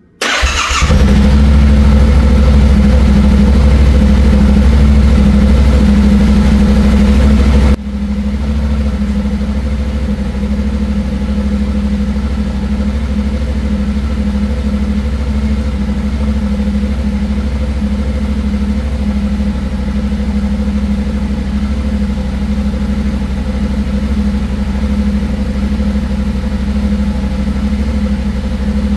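2024 Yamaha Ténéré 700's 689 cc parallel-twin engine cold-starting: it catches within the first second and settles into a steady idle at an even pitch. About eight seconds in the sound gets suddenly quieter, with no change in engine speed.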